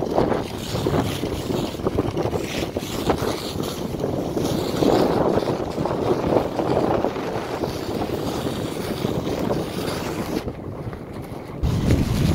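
Wind buffeting the microphone and snow rushing under a sled during a fast ride downhill. The low wind rumble grows heavier near the end.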